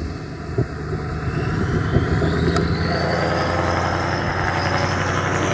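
Vintage cabover truck's diesel engine pulling steadily under load, its note holding one pitch and growing louder about two to three seconds in. A high whistle rises and falls above the engine.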